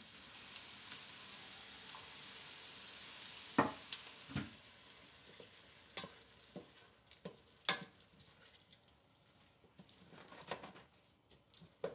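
Diced onions sizzling in oil and a little water in a pot. A steady hiss for the first four seconds or so fades away, with scattered knocks of the wooden spoon and glass lid against the pot.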